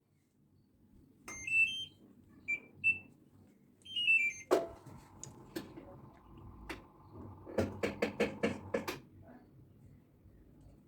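Short electronic beeps stepping up and down in pitch, ending in a quick falling run of tones. Then a faint steady hum and a quick run of about eight sharp clicks.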